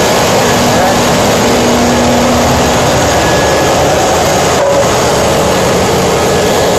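Ship's engine-room machinery running: the diesel engines and generator sets make a loud, steady din with faint constant hums through it.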